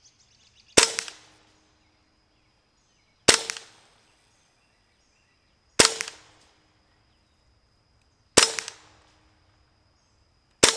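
Hatsan Invader .25-calibre semi-automatic PCP air rifle firing five shots, one about every two and a half seconds, each a sharp crack with a short ringing tail.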